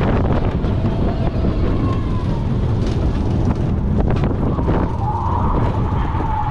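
Slinky Dog Dash roller coaster train running along the track, with heavy wind rush on the microphone over a low rumble and a few sharp clacks. Near the end a thin, steady high whine comes in as the train nears the brake zone.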